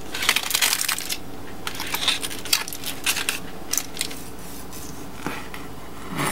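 Dishes and utensils clinking and tapping in an irregular run of sharp clinks, one of them ringing briefly about two seconds in, with a duller knock near the end.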